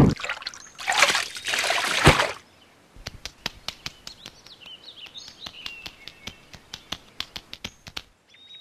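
Cartoon sound effects: two bursts of splashing water in the first couple of seconds, then a quick run of light clicking footsteps, several a second, over faint bird chirps, which cuts off abruptly near the end.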